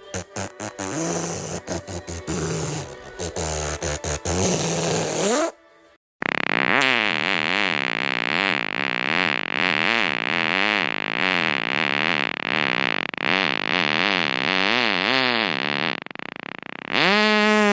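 A series of fart sounds. First comes a few seconds of crackly, popping sputtering, then a brief gap. Next is a long fart whose pitch wobbles up and down about twice a second, and near the end a short one that rises in pitch and holds.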